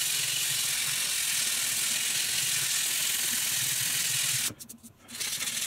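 Coarse sandpaper rubbed by hand over a Yamaha Virago 250's aluminium engine casing, a steady scratchy hiss that stops briefly about four and a half seconds in and then starts again. It is scouring off oxidation that has bubbled up under the paint.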